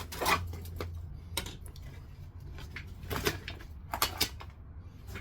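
Plastic tire levers prying a bicycle tire's bead off the rim, with a few separate sharp clicks and scrapes as the levers and bead snap against the rim edge.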